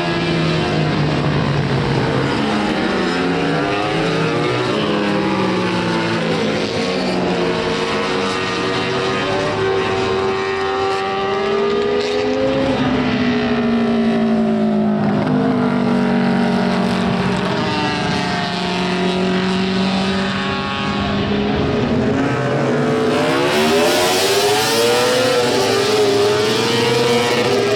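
Honda six-cylinder four-stroke Grand Prix racing motorcycles running at very high revs, several engines overlapping, their pitch rising and falling as they rev, change gear and pass. About 23 seconds in one passes close and the sound turns louder and brighter.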